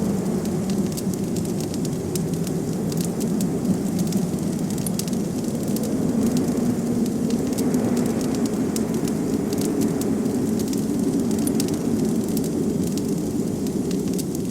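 Wood fire crackling and popping over a steady low rumble of blizzard wind.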